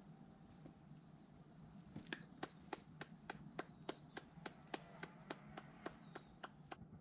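One person clapping hands in a steady rhythm, about three or four claps a second, starting about two seconds in and stopping near the end. Under it runs a steady high-pitched insect call.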